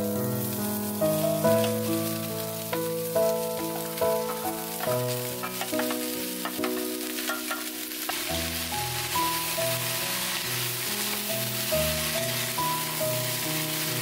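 Diced onion, carrot, zucchini and bell pepper tipped into a hot oiled cast iron pot, the pieces clattering in, then sizzling as they start to fry and are stirred with a wooden spatula. The sizzle grows stronger in the second half. Background music with a gentle melody plays throughout.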